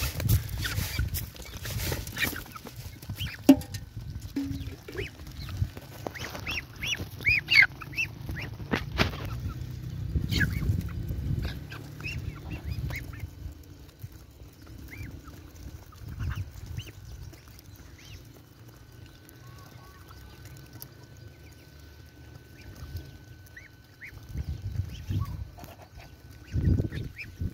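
A flock of Muscovy ducks, ducklings and chickens feeding: scattered short, high peeping calls, with a cluster about seven to nine seconds in, over a low rumble.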